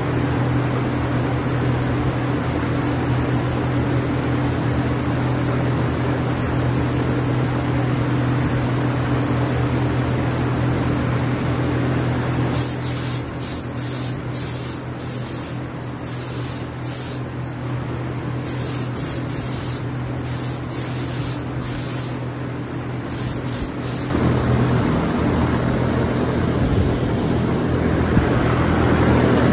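Compressed-air paint spray gun hissing in repeated short bursts as the trigger is pulled and released while spraying primer, over a steady mechanical hum.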